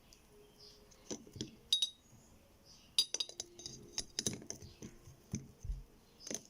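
Kitchen glassware and utensils clinking: a few separate light clinks, then a quicker run of taps and clinks, some with a short ring.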